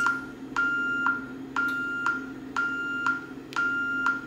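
Honeywell 6160 security keypad beeping at one steady pitch about once a second, each beep lasting about half a second, while the alarm system is armed away.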